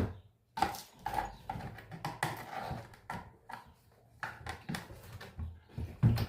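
Scraping, knocking and rattling of hands and a tool working at a taped-in tweeter in a speaker cabinet, trying to pry it loose.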